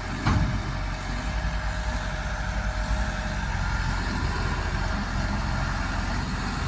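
Heavy construction machine's diesel engine running steadily with a low rumble, with one sharp knock shortly after the start.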